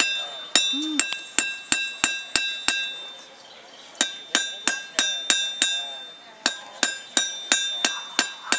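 Blacksmith's hammer striking iron on an anvil, about three blows a second in runs with a short pause about three seconds in, each blow ringing with a bright metallic tone.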